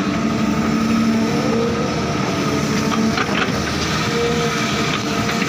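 Volvo excavator's diesel engine running under load, its pitch rising and falling as the hydraulics swing the arm and dump a bucket of earth into a tractor trolley. A few short rattles about three seconds in.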